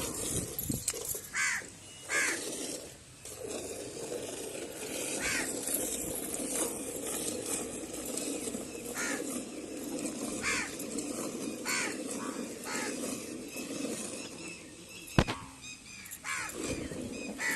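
Crows cawing on and off, a dozen or so short calls, over a steady hissing background, with one sharp click late on.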